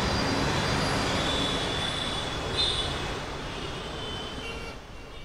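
Steady rumbling vehicle noise with high, thin squeals coming and going, fading out near the end.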